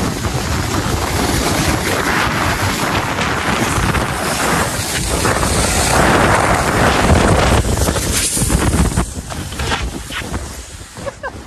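Wind rushing over the microphone and a snow tube hissing and scraping over packed snow on a fast run down a tubing lane. The noise is loudest midway and dies down near the end as the tube slows on the runout.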